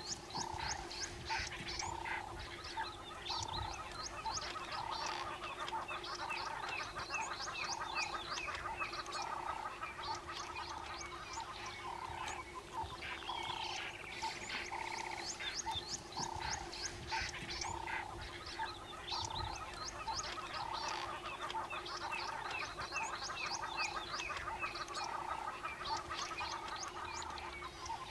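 A chorus of frogs calling: a croak repeating steadily about one and a half times a second over a steady drone, with many quick high chirps mixed in.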